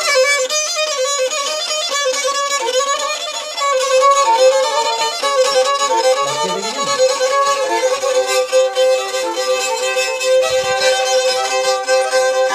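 Black Sea kemençe bowed in a fast folk melody, the changing notes played over a steady drone.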